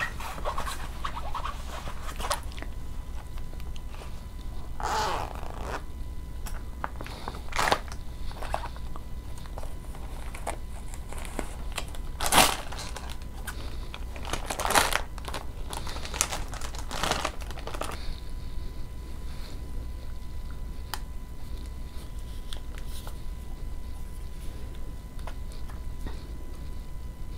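Close-miked ASMR handling of makeup packaging: a fabric cosmetic bag being unzipped and a clear plastic zip pouch crinkled and rustled in several separate short bursts, followed by fainter small clicks as a powder compact is handled.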